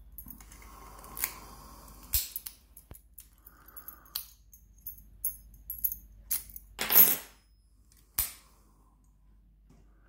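Small metal clicks and rattles of a key being put into and worked in an Abus Pfaffenhain brass padlock, the lock and key handled in the hands. The loudest is a short clatter about seven seconds in, with another sharp click a second later.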